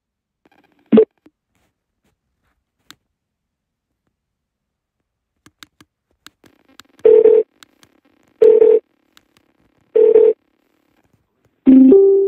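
LENRUE Bluetooth speaker's prompt tones. A short blip about a second in, then faint clicks, then three loud beeps of the same pitch about a second and a half apart, and near the end a two-note beep stepping from a lower note to a higher one.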